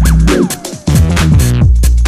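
Electronic dance music, instrumental: a drum-machine beat with deep bass and gliding synth sounds.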